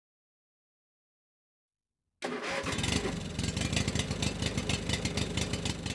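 Truck diesel engine running with a fast, even clatter. It cuts in abruptly after about two seconds of silence.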